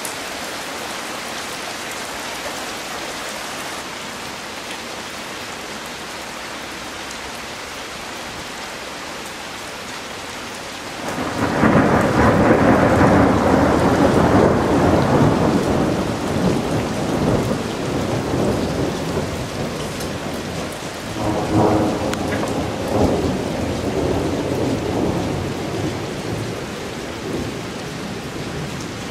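Heavy rain falling steadily. About eleven seconds in, a loud peal of thunder swells and rolls on for several seconds, and a second, weaker rumble follows about ten seconds later.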